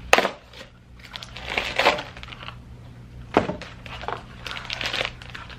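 A blind-box mystery package being torn open and handled: crinkling and rustling in bursts, with a sharp snap just after the start and another about three and a half seconds in.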